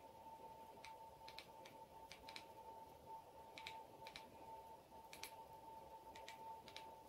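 Faint quick clicks, many in close pairs, as remote-control buttons are pressed to step the projector's keystone corners, over a faint steady high hum.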